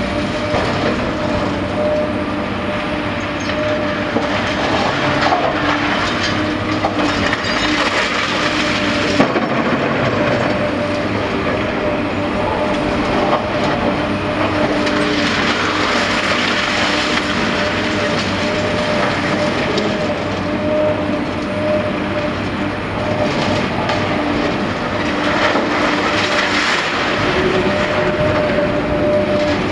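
Caterpillar demolition excavator working, its engine and hydraulics running steadily with a held drone while the crusher jaws break reinforced concrete, with continual crunching and clattering of falling rubble.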